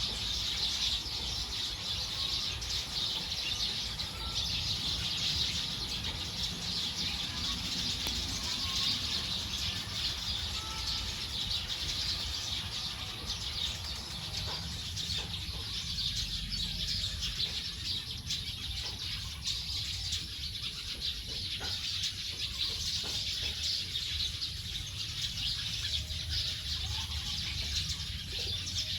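A large flock of birds chirping together in a dense, continuous chorus as they gather to roost for the night.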